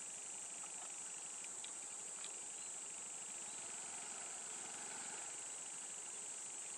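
Steady, high-pitched chorus of insects, with a faint rushing swell near the middle and a few soft clicks early on.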